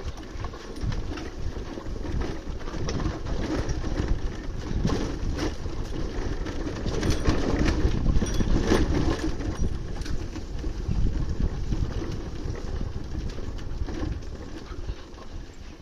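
Bajaj Pulsar 220's single-cylinder engine running as the motorcycle rides over rough ground, with many short knocks and rattles. It is loudest about halfway through and fades near the end.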